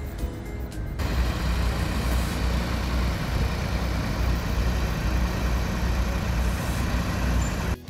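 Dewatering pump engine running steadily with a deep, even hum. Background music stops abruptly about a second in, where the engine sound starts.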